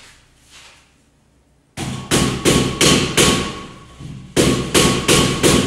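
Hammering: a run of sharp, evenly spaced blows, about three a second, starting a little under two seconds in, with a short pause about four seconds in.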